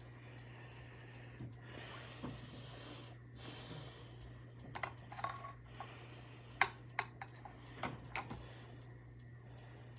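A person breathing close to the microphone, with a handful of small sharp clicks and taps in the second half, over a steady low hum.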